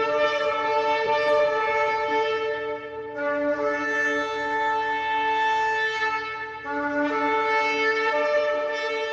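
Shofar (ram's horn) blown in long held blasts, with brief breaks about three seconds and six and a half seconds in; the last blast runs on past the end.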